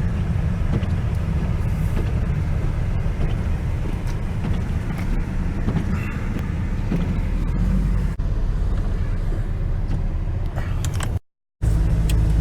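Pickup truck driving, with a steady low engine and road rumble heard from inside the cab. About 11 seconds in the sound drops out briefly, then the drive noise resumes as a steadier hum.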